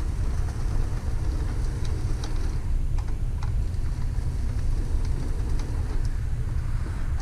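Athearn Genesis model diesel locomotive running on track: a steady low motor and wheel rumble with scattered light clicks, running smoothly as a brand-new, not yet broken-in engine.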